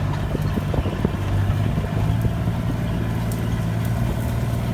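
Vehicle engine running steadily at a low, even pitch while driving slowly over rough ground, with light knocks and rattles from the ride.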